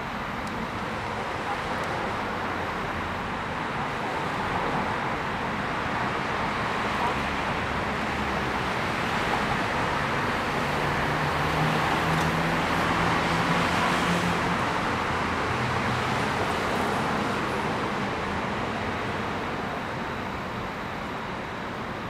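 A car driving past on the street, its tyre and engine noise rising slowly to a peak about halfway through and then fading away.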